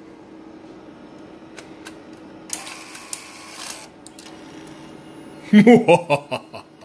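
The Sony DSR-80 DVCAM deck's tape-loading mechanism whirs for about a second, with clicks, as the cassette is drawn in and threaded, over a steady low hum. About a second before the end comes a short wordless voice sound, then a few light clicks.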